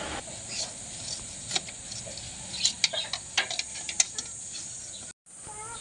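Irregular sharp metallic clicks and ticks from an adjustable oil filter wrench as it is fitted and worked in small turns on a tight, cramped spin-on oil filter.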